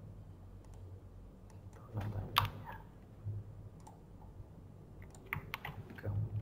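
Computer keyboard typing: scattered, irregular keystrokes, with one sharper click about two and a half seconds in.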